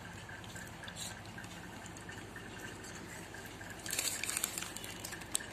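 Faint handling of takeaway food over a low steady hum: soft wet squishing at a bowl of sauce, then a short crinkle of the naan's paper wrapper about four seconds in.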